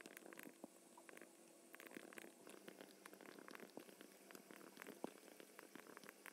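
Faint computer keyboard typing: quick, irregular key clicks over a low steady hum.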